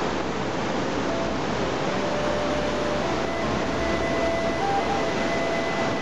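Swollen river in spring flood rushing through rapids: a steady, even rush of churning water.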